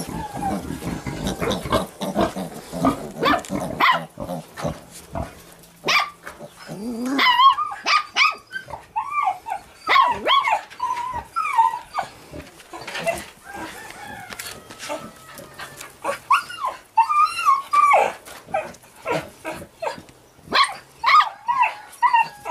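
A Laika puppy and wild boar piglets calling: many short, high squeals and yelps that rise and fall in pitch, coming in quick runs, with sharp clicks scattered between them.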